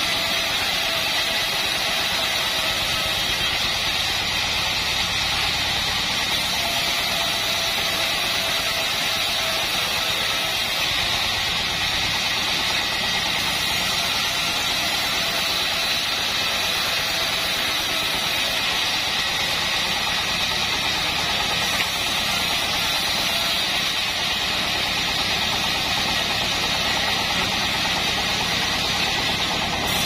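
Homemade band sawmill running steadily while a wooden plank is fed along its table and ripped lengthwise by the band blade.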